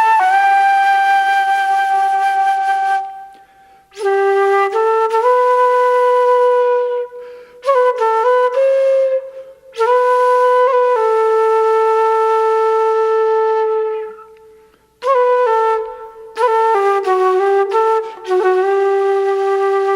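Unaccompanied flute playing a slow traditional Irish tune: long held notes with quick ornaments, in phrases separated by short pauses.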